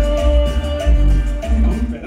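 Latin dance music played loud over a sound system, with a heavy, pulsing bass beat and held instrumental notes.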